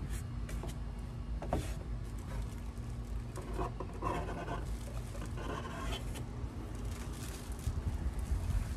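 Cardboard shipping box and the plastic-bagged root ball of a young fruit tree rustling and scraping in several short bouts as the tree is lifted out of the box, over a steady low hum.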